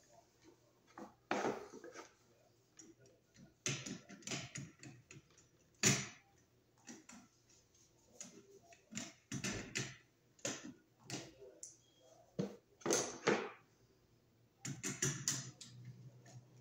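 Irregular clicks, taps and scrapes of hand tools and small metal hardware being handled in scattered clusters, as a bare #12 copper ground wire is wrapped under a light fixture's green ground screw and tightened.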